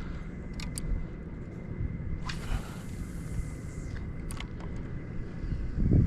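Wind buffeting the microphone with a steady low rumble, a few small clicks, a hiss lasting under two seconds in the middle, and a strong gust at the end.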